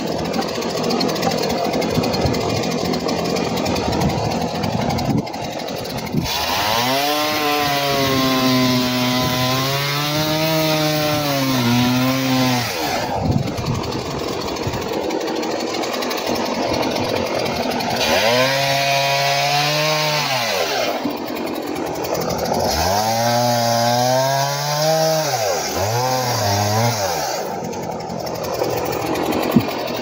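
Two-stroke chainsaw running at high revs while crosscutting birch logs. In three spells of several seconds each, the engine note sags and recovers under the load of the cut.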